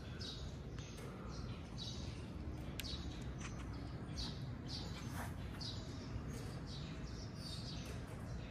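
A small bird chirping over and over, short high chirps that fall in pitch, about one and a half a second, over a low steady rumble.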